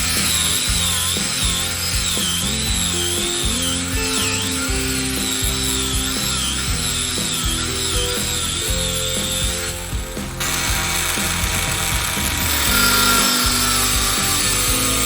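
Background music with held notes that change every second or so, and a wavering high tone.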